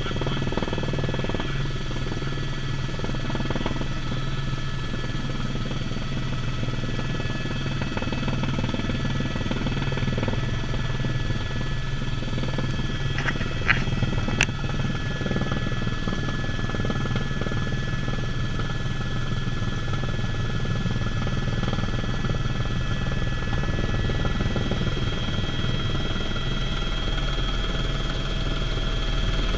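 Helicopter in flight, heard from inside the cabin: a steady low drone with a layer of steady high whine over it. A couple of short clicks come about halfway through.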